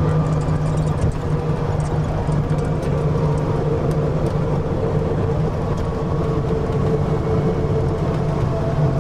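Steady engine and road drone heard from inside a moving vehicle, holding an even pitch throughout.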